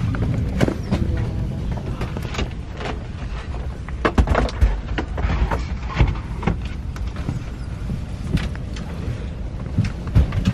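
Steady low rumble inside an airliner cabin at the gate, with irregular knocks and thumps scattered through it.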